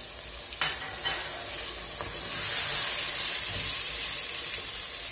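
Lamb, chickpeas, garlic and spices frying in a stainless steel pot, sizzling steadily while a wooden spoon stirs them; the sizzle grows louder about two seconds in, with a single knock about half a second in.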